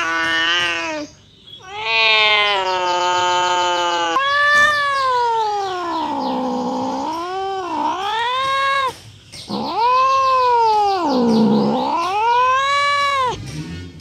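Feral domestic cat yowling angrily: four drawn-out caterwauls, the second held at a steady pitch and the later ones sliding down low and back up, with short breaks between them. A threatening, hostile cat yowl.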